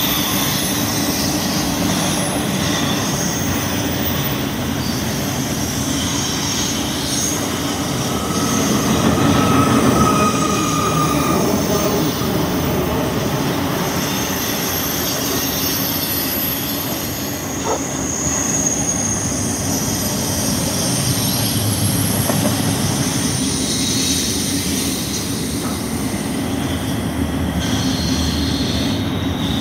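Double-stack intermodal container train rolling past close by: a steady rumble and rattle of steel wheels on rail, with thin, high wheel squeals coming and going.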